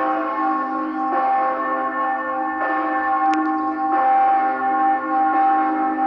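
Church bell ringing, struck about every second and a half, each stroke ringing on into the next so the tone never dies away.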